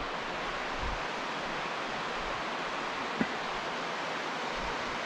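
Steady rush of a mountain creek's flowing water, with a single soft thump about three seconds in.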